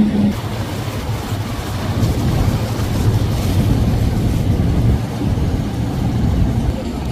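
Large flybridge motor yacht's engines running steadily at cruising speed, a low rumble with water rushing in its wake.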